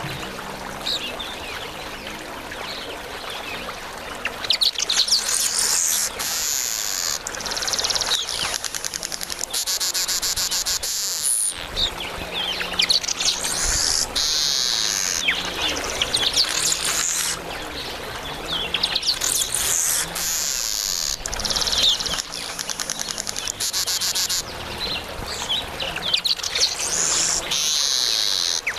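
Male southern masked weavers chattering: long runs of fast, buzzy ticking calls. The chatter is sparse for the first few seconds, then comes in loud bursts of a second or two with short breaks.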